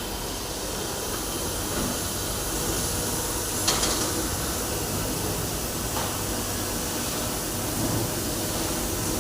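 Steady machinery noise, a constant hiss over a low hum, with a sharp click about four seconds in and a fainter one about two seconds later.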